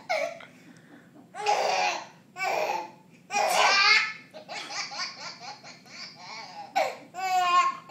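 A baby laughing in several loud bursts of belly laughter, with softer sounds between them and a quick, pulsing burst of laughter near the end.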